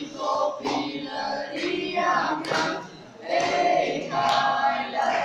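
A group of voices singing a song together in phrases, a short dip between each.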